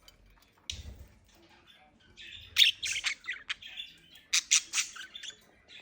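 Budgerigars chattering, with a few sharp, loud squawks in two clusters, the first shortly after the middle and the second near the end.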